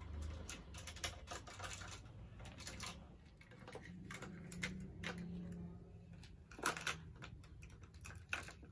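Plastic toy kitchen utensils and a small toy pan tapping and clattering: irregular light clicks and knocks, with a couple of sharper knocks late on.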